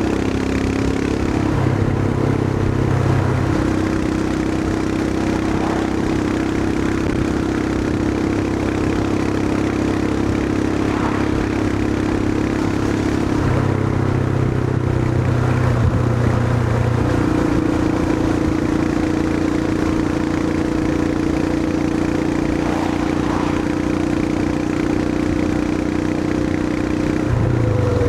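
Royal Enfield Himalayan 411's single-cylinder engine running under way. Its note shifts up and down a few times, about a second and a half in, near the middle and again near the end, as the revs change.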